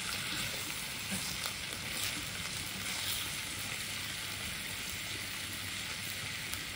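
Two hand-chopped beef patties sizzling steadily in olive oil in a nonstick frying pan, searing over high heat, with a few faint crackles of spattering fat.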